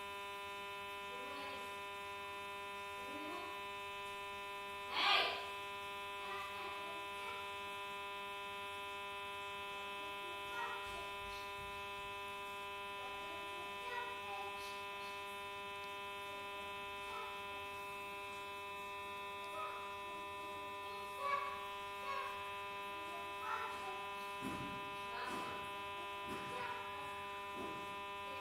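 Samsung J2 phone's speaker giving a steady, unbroken buzzing tone that stays on after a call has been disconnected, a fault in the phone. A few faint knocks sound over it, one louder about five seconds in.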